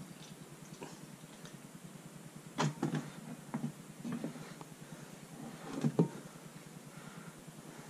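A few short knocks and clunks of parts being handled and set down: a cluster about two and a half seconds in, another just after, and the loudest pair about six seconds in, over a faint steady hum.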